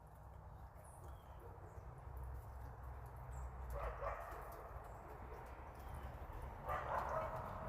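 Two short animal calls, about three seconds apart, over a steady low rumble.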